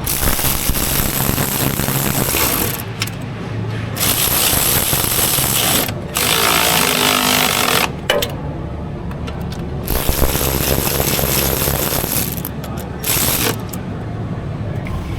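Pneumatic shop tool running in five bursts of one to two and a half seconds each, hammering and hissing, over a steady low hum.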